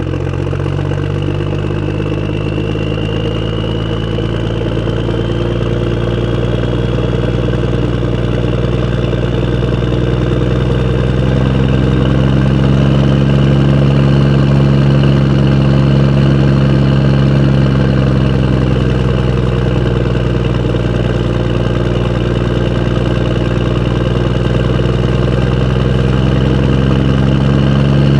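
A motor vehicle's engine running steadily. Its pitch rises a little near the middle and settles back, and the sound slowly grows louder. A thin high whine rises in pitch over the first several seconds.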